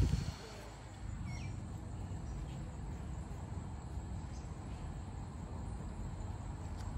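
Steady outdoor ambience, mostly a low rumble, with one faint short falling bird chirp about a second and a half in. A sharp bump at the very start, like the phone being handled.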